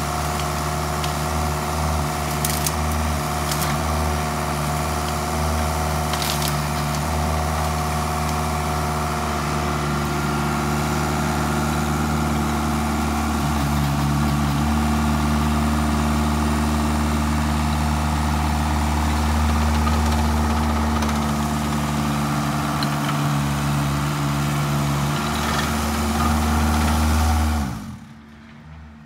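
Engine of a stand-on mini track loader with a grapple running steadily under light load, with a few sharp knocks in the first several seconds. The sound cuts off suddenly near the end.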